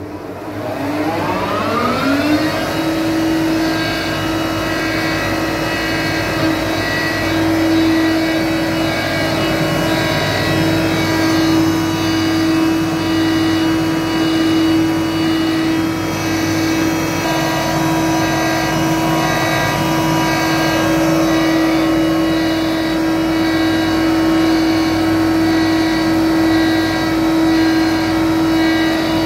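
Bütfering AWS-C 1100 wide belt sanding machine starting up: its motor whine rises over about the first two seconds, then it runs steadily at full speed with a constant tone.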